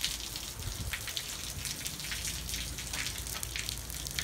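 Monsoon rain falling steadily, with many separate drops hitting close by.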